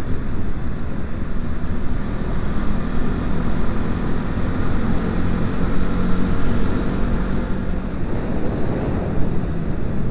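KTM motorcycle riding at speed: steady wind rush over the microphone, with the engine running underneath at an even pitch.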